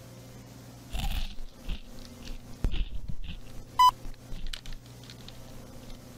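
Potato chips being chewed close to a headset microphone: irregular crunches through the first few seconds over a low steady hum. A short electronic beep sounds about four seconds in and again at the very end.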